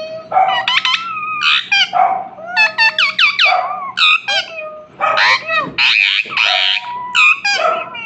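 Indian ringneck parrot calling: a rapid, unbroken string of short, high chirps and whistles that sweep sharply in pitch, with a couple of longer harsh squawks a little past the middle.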